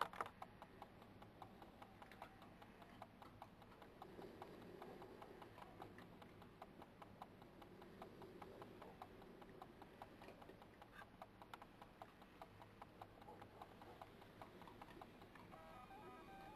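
Faint, irregular crunching clicks from an animal chewing scattered food at a feeding spot.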